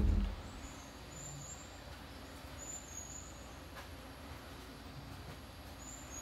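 Faint, steady evening outdoor background with short high chirps a handful of times. A single low thump at the very start is the loudest sound.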